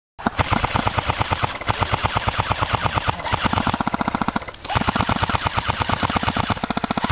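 Airsoft light machine gun firing full-auto in long bursts: a fast, even chatter of shots with a short pause just past the middle.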